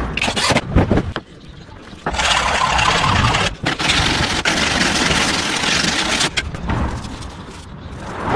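A power tool running hard for about four seconds from about two seconds in, briefly interrupted once, then winding down. Short knocks and clatter come before it.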